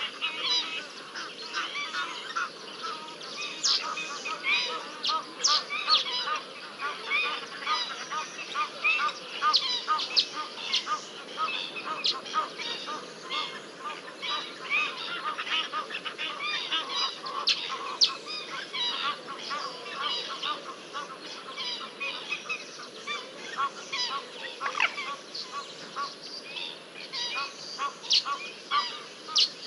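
A dense, continuous chorus of short, high-pitched animal calls, many each second, with no pause.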